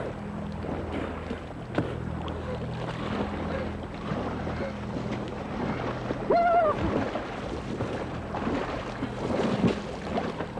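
Water sloshing and splashing around a kayaker hauling himself out of near-freezing sea onto the edge of an ice floe, with wind on the microphone. There is one short cry about six seconds in. A low steady hum runs through roughly the first half.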